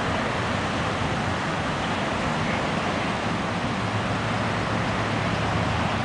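Steady outdoor rumble of idling emergency vehicles and traffic: a low engine hum under an even hiss.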